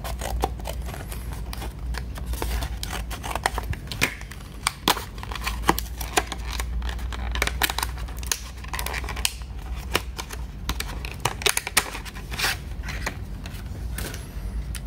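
A new SSD's sealed retail packaging being opened by hand: irregular clicks, snaps and crinkling of plastic and cardboard, over a low steady hum.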